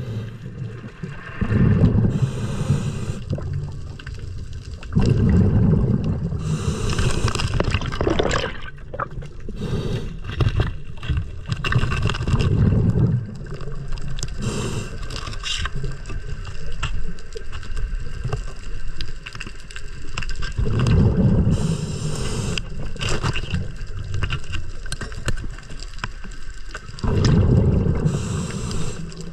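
Scuba diver breathing through a regulator underwater: a rumbling gush of exhaled bubbles every few seconds, several with a sharp hiss of air, and scattered clicks between breaths.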